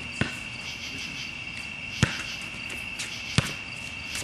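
A basketball bouncing three times, sharp slaps about a second and a half to two seconds apart, the last two the loudest. Under it, a steady high-pitched chorus of night insects.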